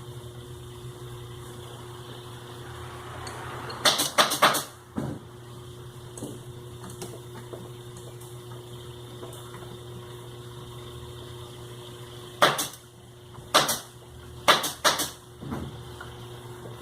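Sharp clicks and knocks in two clusters, about four quick ones near the start and several more near the end, over a steady low hum, as parts of the sewing machine are handled during the repair.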